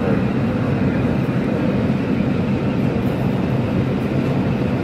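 Breda A650 subway car running through a tunnel, heard from inside the car: a steady rumble of steel wheels on rail and the GE 5GEB traction motors.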